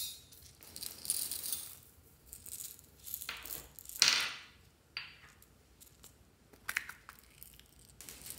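Small beads rattling inside a plastic gourd-shaped capsule as it is handled and opened, with clicks of the plastic halves. The rattle comes in several short bursts, the loudest about four seconds in.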